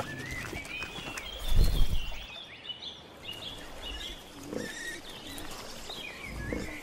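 Wild boars grunting as they forage, loudest about one and a half seconds in, with fainter grunts later, over steady chirping birdsong.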